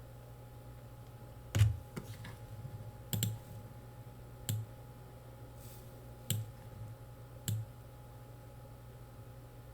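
Computer keyboard keys pressed one at a time with pauses between them, about six separate clicks, the first the loudest, then no more keystrokes near the end.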